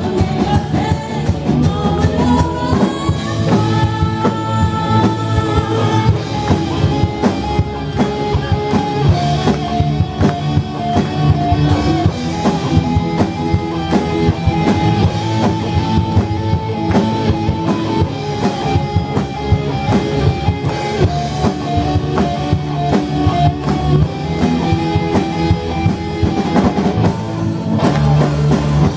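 Live rock band playing: a drum kit keeps a steady beat under electric guitars and bass, with held melody lines on top.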